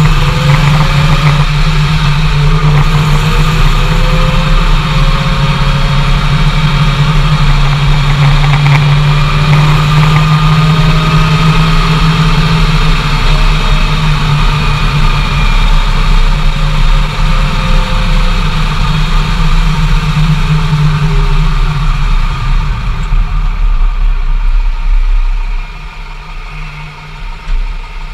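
Dodge Ram 2500HD's 5.7 L Hemi V8 and drivetrain heard from inside the cab while driving: a loud steady drone with a fainter whine that rises and falls slowly with speed. It drops off sharply near the end as the truck eases off.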